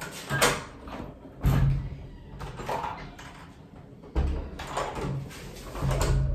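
Hotel room door being unlatched and opened: a sharp click, then two heavy thuds, about a second and a half and about four seconds in.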